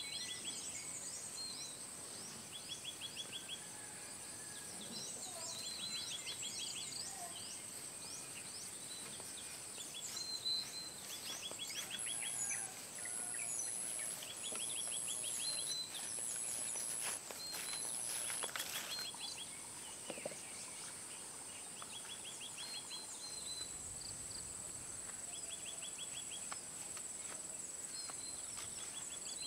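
Rural ambience of insects and birds: a steady high insect drone, with a pulsing high insect call for several seconds midway. Through it, birds chirp and give short trills that repeat every couple of seconds.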